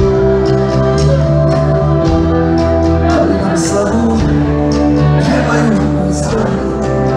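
A live band playing loudly, with held keyboard chords and singing over a steady drum beat of about two hits a second.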